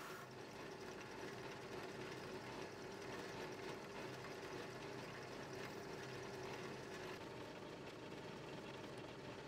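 Drill press motor running steadily, spinning a buffing wheel as brass parts are polished against it; a steady hum with a light hiss.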